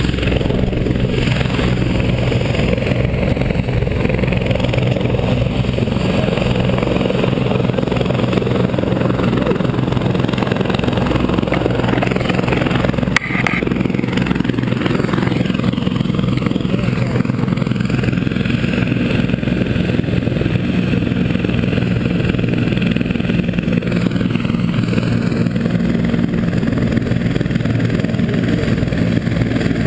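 Medic helicopter's turbine engine and rotor running steadily while parked on the snow, a loud, even drone. A single sharp knock comes about halfway through.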